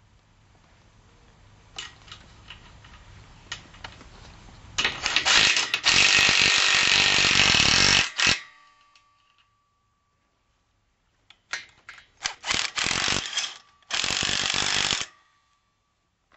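Cordless power drill driving bolts into a solar panel's steel mounting rail: one long run of several seconds, then after a pause a few clicks and two shorter runs.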